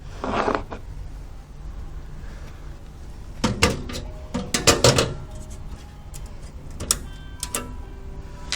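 Scattered sharp clicks and knocks of hard objects being handled, with a cluster of several a few seconds in and single clicks later.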